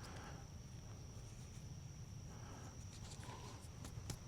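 Faint outdoor ambience: a steady high-pitched insect trill, with a few soft clicks in the second half.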